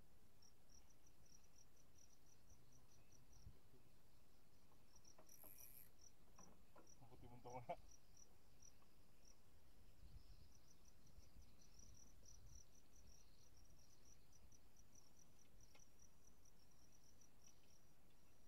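Faint insect chirping, short high-pitched chirps repeating evenly at about four a second, pausing briefly and then carrying on. A short faint sound stands out about seven and a half seconds in.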